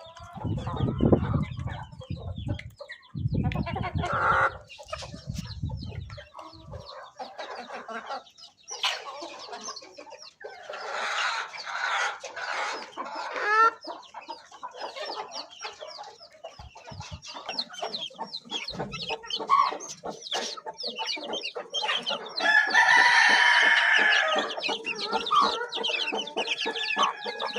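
A flock of free-range chickens clucking and chattering, with low rumbling thumps during the first six seconds. A rooster crows loudly about three-quarters of the way through.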